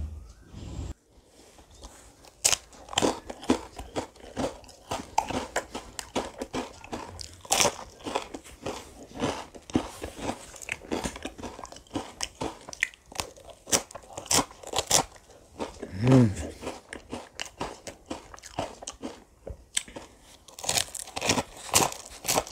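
Person eating ice cream close to the microphone: a run of crunchy bites and chewing, many short, irregular crunches.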